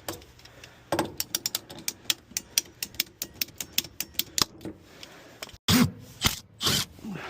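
A rapid run of sharp clicks, about five a second for three or four seconds, followed by a few louder knocks near the end.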